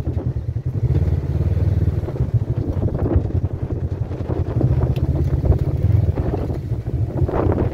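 Polaris RZR side-by-side's engine running steadily as it drives over a dirt trail, with some wind on the microphone.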